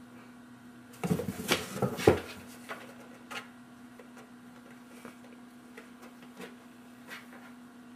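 Cardboard box scuffling as two cats swat at each other, the one inside the box pushing against its sides: a loud burst of scraping and knocking about a second in that lasts about a second, then a few light taps. A low steady hum runs underneath.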